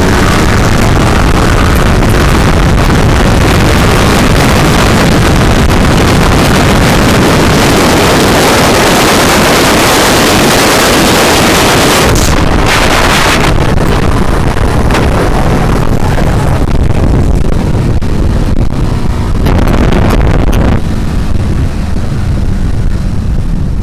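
Heavy wind rushing over the microphone of a motorcycle riding at speed, with the engine running underneath; the wind eases near the end as the bike slows.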